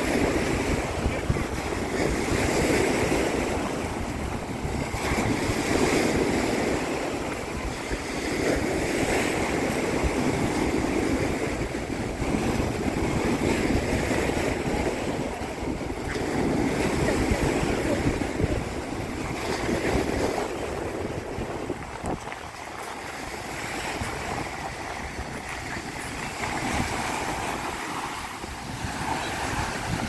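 Small sea waves washing onto a beach, swelling and easing every few seconds, with wind buffeting the microphone.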